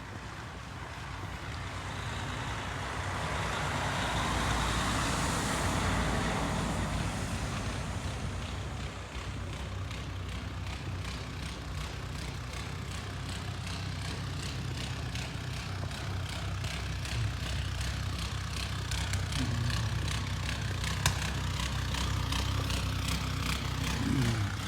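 Footsteps crunching through snow in a steady walking rhythm, over the sound of a vehicle passing on the road, which is loudest about five seconds in.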